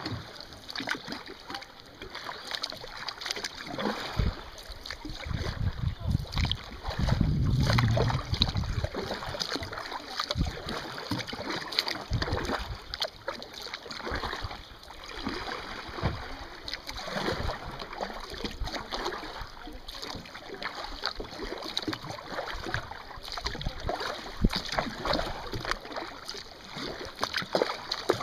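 Kayak paddles dipping into a slow river, with irregular splashes and water dripping off the blades. A low rumble runs from about four to nine seconds in and returns briefly near twelve seconds.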